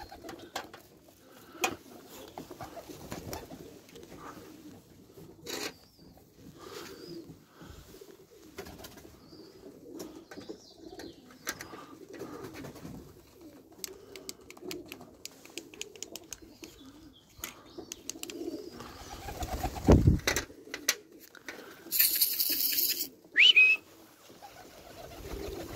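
Domestic pigeons cooing around the loft, with scattered wing claps and clicks. A loud thump comes about 20 seconds in, then a hiss of about a second and a short rising whistle.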